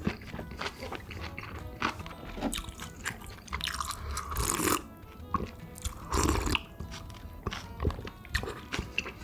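Close-miked eating: chewing and crunching on food with many small wet clicks and two longer noisy stretches, one around the middle and one a couple of seconds later.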